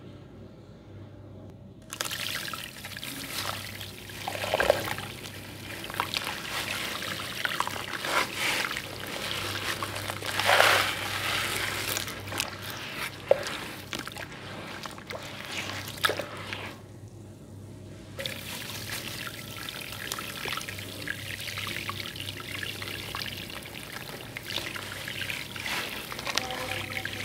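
Water sloshing, splashing and trickling as a hand stirs a basin of sand-cement slurry, starting about two seconds in, with a louder splash near the middle and a brief lull later. A faint steady hum runs underneath.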